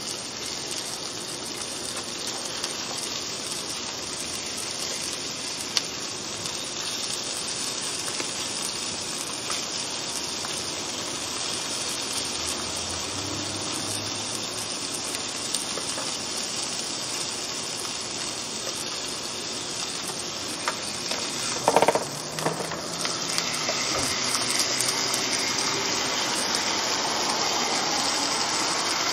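T-bone steak sizzling on a hot electric contact grill, a steady hiss. About three-quarters of the way through there is a short clatter, after which the sizzle grows a little louder.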